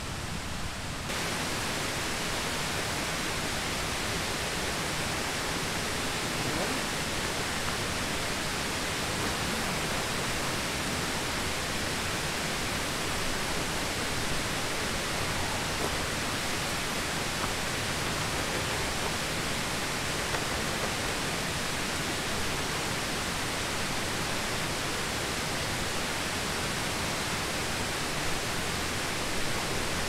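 Steady rushing of a mountain stream, an even hiss with no breaks.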